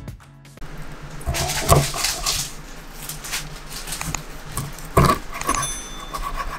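A steel cleaver chopping a trout into steaks on a wooden cutting board: a run of knocks, with heavy chops a little under two seconds in and about five seconds in, each ringing briefly.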